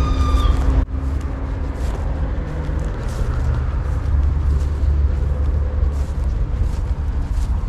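Freight locomotive's whistle sounding a steady chord-like blast that cuts off abruptly under a second in, over the steady low rumble of the passing freight train. The whistle is the driver's warning signal given at a whistle ('S') sign.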